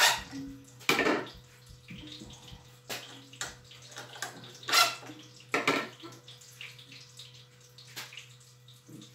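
Scattered knocks and clicks of tools and screws being handled and set in place, a few louder ones near the start, about a second in and near the middle, over a steady low hum. No impact driver is running.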